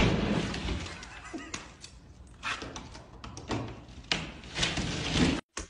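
A fist punching through a drywall partition: a sudden loud bang at the start, then crumbling and scraping of the broken plasterboard, with several sharp knocks as the hand works through the hole.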